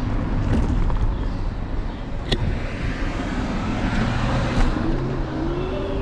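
Street traffic and low road rumble heard from an electric scooter riding through a city intersection, with a pitched whine rising in the second half and a sharp click about two seconds in.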